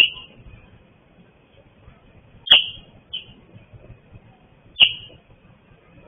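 A bird calling out of sight: four short, sharp high notes, each starting with a crack. The loud ones come about two and a half seconds apart, with a softer note after the second. A faint steady high tone runs underneath.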